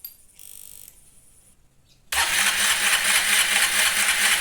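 Honda CG Fan 160 single-cylinder engine turned over on its electric starter for about three seconds, starting about two seconds in, with a steady rhythmic pulse. The plug cap is off, so it cranks without firing, to pump oil up to the camshaft and rockers.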